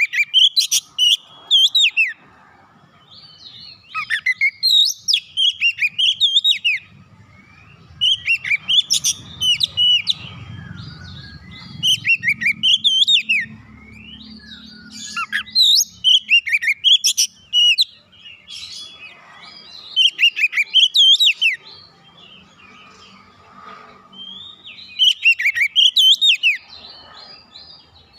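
Oriental magpie-robin (kacer) singing loud phrases of rapid whistled notes that sweep up and down in pitch. There are about eight phrases, each a second or two long, separated by short pauses.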